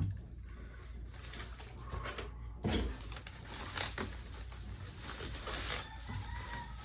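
Quiet room with a steady low hum and a few faint knocks and clicks from a large portable speaker being handled; a bird calls faintly near the end.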